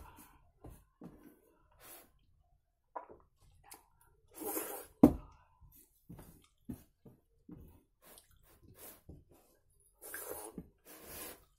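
Fingers squishing and scraping soft, wet fena bhat (rice in its starchy water) around a steel plate, with slurping as mouthfuls are eaten by hand near the end. A single sharp knock stands out about five seconds in.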